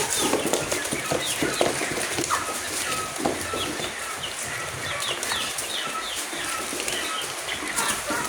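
A flock of chickens feeding, giving many short clucks and cheeps over a scatter of quick clicks and taps.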